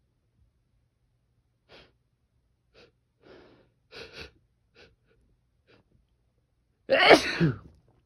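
A person's sneeze building up: a string of short, faint catching breaths over several seconds, then one loud sneeze near the end, its pitch falling.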